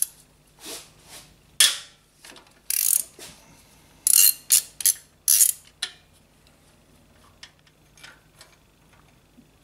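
Socket ratchet wrench clicking in quick bursts as cylinder head bolts are loosened one after another. The bursts stop about six seconds in, leaving a few faint ticks.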